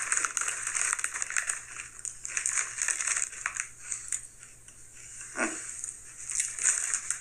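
Crunching of Sun Chips being chewed, a run of crisp crackles. There is one brief low sound about five and a half seconds in.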